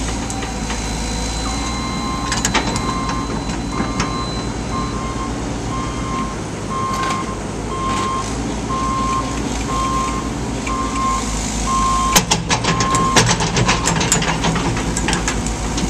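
Diesel construction machine running while its back-up alarm beeps steadily, about once a second, stopping about three-quarters of the way through. Near the end comes a run of sharp clanks and knocks.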